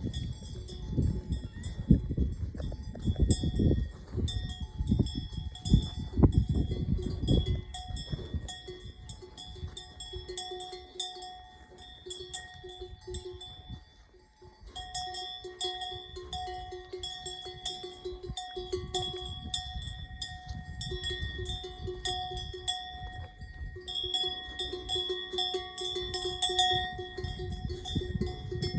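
Bells on grazing cattle, clinking and ringing steadily, with low rumbling for much of the first half.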